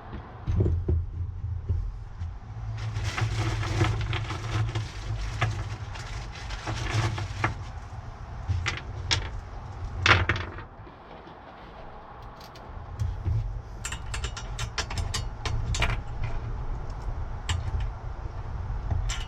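Lag bolts being driven into the van floor with a power driver running in spells, with sharp clicks and knocks of tool handling in between, many of them near the end.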